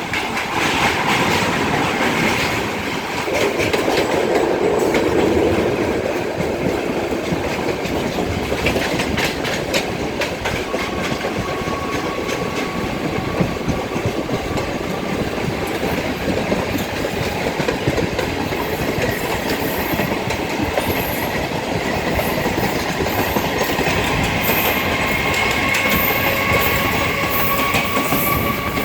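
Electric multiple-unit suburban train running on track: a steady rumble with the clickety-clack of wheels over rail joints. A thin steady wheel squeal comes in about a third of the way through and grows stronger near the end.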